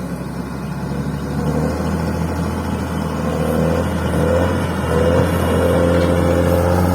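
Bulldozer's diesel engine running under load while it levels fill soil, getting louder over the first few seconds and then holding steady, with a wavering whine above the engine note in the second half.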